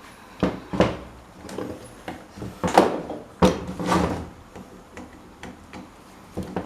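Parts and tools being handled on a work surface: a series of irregular knocks and short scrapes, loudest around the middle.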